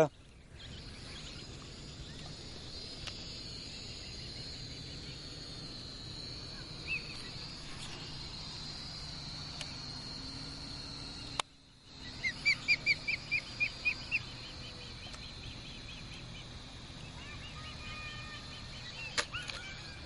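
Osprey calling: a quick run of about eight sharp, falling whistled chirps about halfway through, with fainter chirps near the end, over a steady high-pitched whine.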